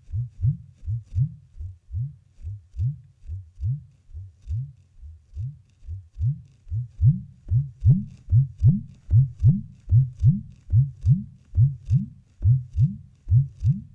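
A low, fast thumping pulse, about two to three beats a second with some beats falling in pairs, growing louder about halfway through.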